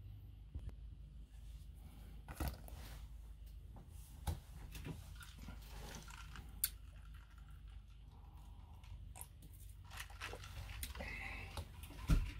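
Quiet handling noises: scattered light clicks, taps and rustles over a low steady hum, with one louder knock near the end.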